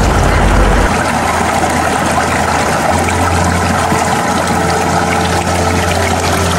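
Shallow mountain stream rushing and splashing over rocks, heard close to the water.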